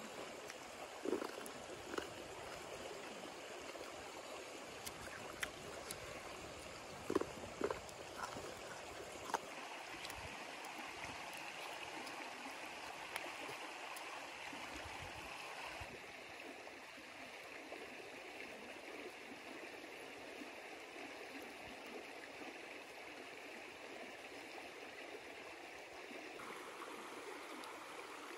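Shallow river rushing over rocks: a steady hiss of flowing water. A few light clicks and knocks stand out in the first several seconds.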